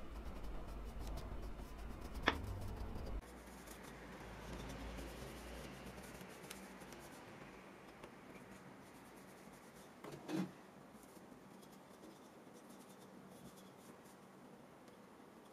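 Paintbrush bristles rubbing softly on wood as stain is brushed onto wooden hand-plane parts, with a sharp tap about two seconds in and a short knock near ten seconds.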